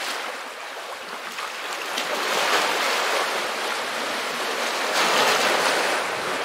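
Small sea waves washing in over rocks and pebbles at the water's edge, a steady rush that swells louder twice as waves come in.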